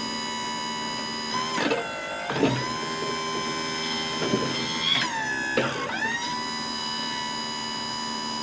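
Background music led by electric guitar: long held notes that bend into a new chord every few seconds.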